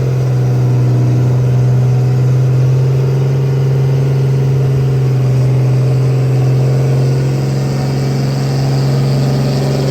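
A diesel pickup truck engine running loud at steady, held revs, its pitch not rising or falling.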